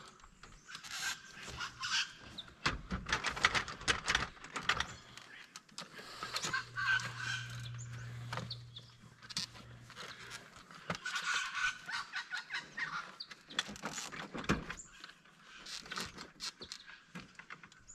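Irregular clicks and knocks from handling and fitting a metal anti-flap clamp into a caravan awning rail, with birds calling in the background and a low steady hum for a few seconds in the middle.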